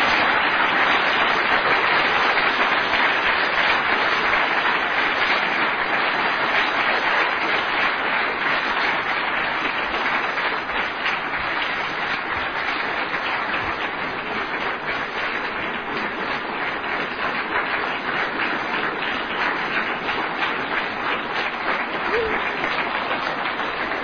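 Audience applauding at length: dense, steady clapping that eases off slightly toward the end.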